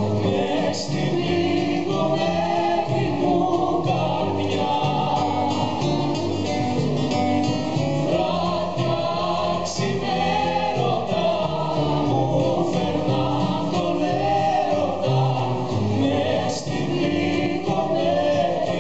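Live performance of a Greek laïko song: singing over instrumental accompaniment, continuous throughout.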